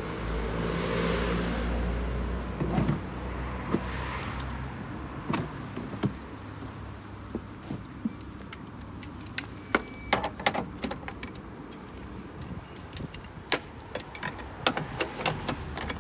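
A small electric motor hums for about the first three seconds and stops. Then come repeated sharp metal clicks and clacks as wheelchair tie-down retractor clamps are handled and locked into the vehicle's floor tracks, with the buckles and straps rattling.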